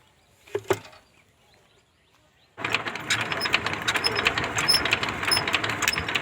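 Two short knocks, then about two and a half seconds in a loud machine clatter starts suddenly and runs on steadily, thick with rapid irregular knocks.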